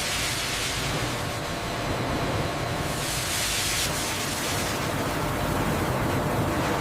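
Steady noise of paper-making machinery running: a dense, even hiss over a low hum.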